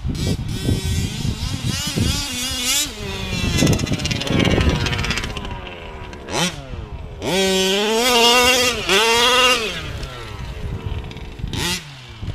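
Losi 5ive-T's two-stroke petrol engine running and being revved in repeated blips, its pitch rising and falling, with the longest and loudest rev lasting a couple of seconds past the middle.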